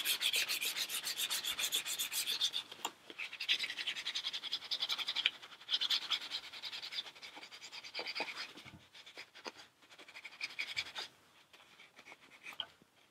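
400-grit emery paper rubbed by hand along the edges of a Ruger American rifle's synthetic stock in quick back-and-forth strokes, polishing out the sharp moulding flashing. The strokes stop about eight seconds in, leaving only a few light scrapes and taps.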